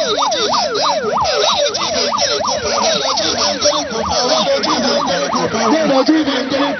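Several electronic vehicle sirens sounding at once in a fast yelp: rising-and-falling sweeps about three a second, overlapping and out of step with one another.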